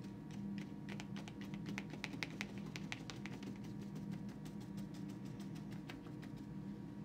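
A paintbrush dabbing up and down on watercolour paper, stippling paint: a quick run of soft taps, thickest in the middle and stopping about a second before the end. A steady low hum lies underneath.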